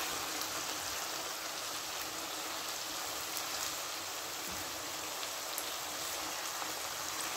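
Chicken pieces sizzling in hot oil with onion, ginger-garlic and green chilli paste while being stirred with a spatula, a steady even hiss with a few faint crackles, the browning (bhuna) stage of a chicken karahi.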